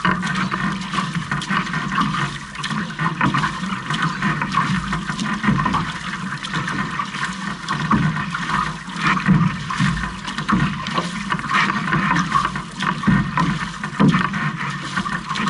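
Water rushing and splashing along the hull and outrigger float of a six-person outrigger canoe under way, mixed with the splash of the crew's paddle strokes.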